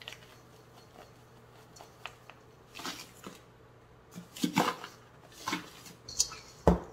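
Salt poured from a canister into a stainless steel bowl of shredded cabbage, then hands working it through the cabbage: a few scattered soft rustles and knocks, with one sharp knock near the end.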